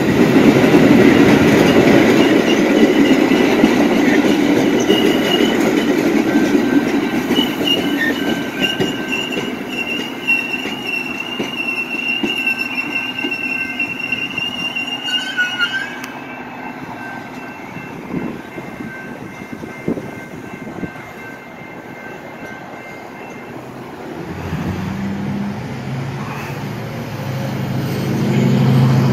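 Metra bilevel commuter train running along the station platform: a loud rolling rumble that fades as the train slows. Steel wheels squeal in several steady high tones for several seconds midway, and a low hum rises near the end.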